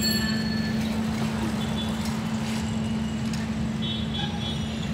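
Steady street traffic noise with a continuous low hum, and a few faint, short high tones near the end.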